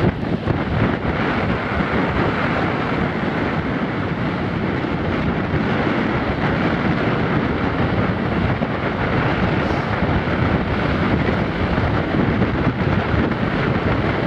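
Strong onshore wind, force 6, buffeting the microphone over North Sea surf breaking and washing up the beach, a steady rushing noise with no let-up.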